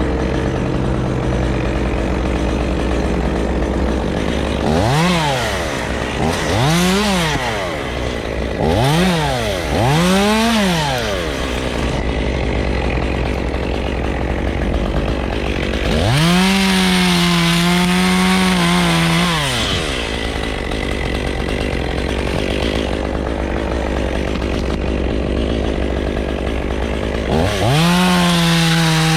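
Stihl chainsaw revved in four short blips, then held at high revs cutting through wood for a few seconds, with another cut starting near the end. A steady engine idle runs underneath.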